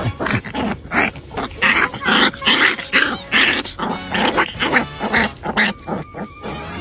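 A dog making a rapid string of short, rough vocal sounds, about three a second.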